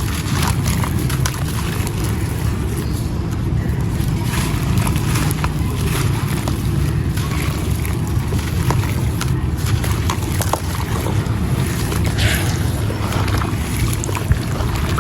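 Gritty brown stone and sand-cement chunks crumbling in water: a continuous wet, sloshing churn with many small crackles and pops scattered through it.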